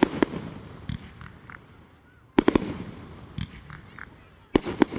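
Fireworks shells bursting: sharp, loud reports in three clusters, at the start, about halfway through and near the end, with fainter single pops between them.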